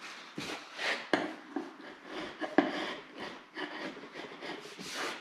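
Irregular scraping and rubbing strokes of a hand blade along the edge of a laminated chipboard panel, trimming and smoothing the edge, with a couple of sharp clicks of the tool against the board.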